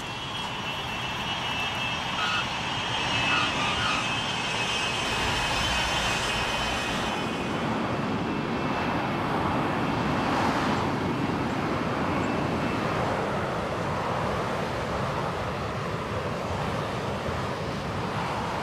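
Single-engine military jet landing and rolling along the runway: a steady jet rush, with a high whine over it for the first several seconds.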